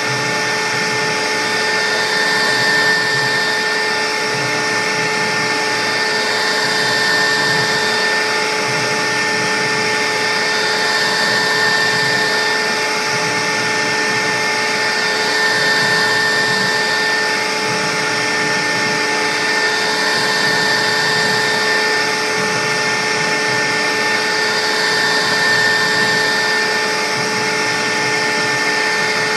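CNC router spindle running steadily with a high whine as it cuts a sign, the cutting noise swelling and easing every few seconds as the bit moves along its path.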